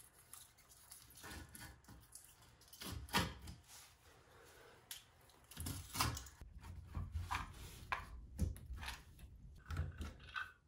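A knife blade scraping and cutting along the silicone caulk bead at the base of a porcelain toilet on a tile floor, in short, uneven strokes with small knocks of the tool and hands.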